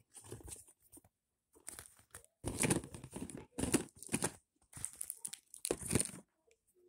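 Packaging crinkling and rustling in a series of short bursts as a handful of small toys and accessories are handled and put back into it.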